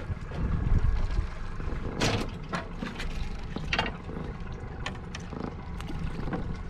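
Steady low rumble of a boat at sea, with a few brief clicks and knocks, the sharpest about two seconds in.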